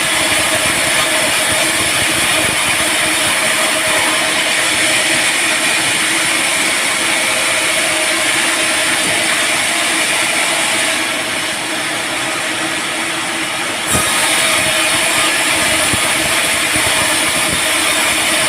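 Sawmill band saw running with a steady hum and hiss. The hiss thins for about three seconds a little past the middle, then a single sharp knock.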